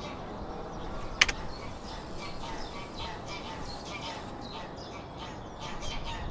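Birds chirping and calling outdoors over a steady low rumble, the calls growing busier in the second half. A single sharp click sounds about a second in.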